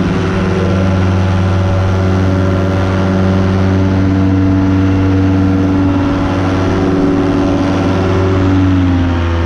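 Miniplane Top 80 paramotor's single-cylinder two-stroke engine and propeller running steadily in flight, its pitch dipping slightly near the end.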